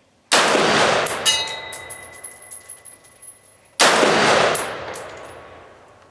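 Two shots from a retro AR 601 rifle, an AR-15-pattern rifle firing 55-grain Lake City ammunition, about three and a half seconds apart. Each shot has a long echoing tail, and short metallic pings follow each one.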